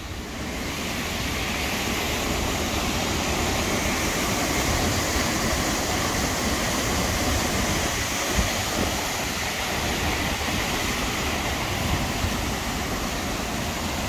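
Waterfall rushing: a steady, even sound of falling water that grows a little louder over the first second or so.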